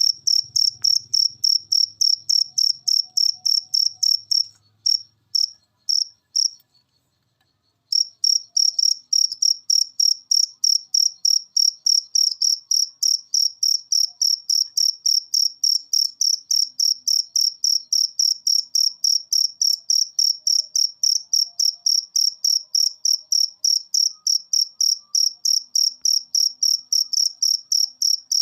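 A field cricket chirping: a steady, rapid train of high-pitched chirps, about four a second. It falters about four seconds in, stops for about a second, and starts up again about eight seconds in.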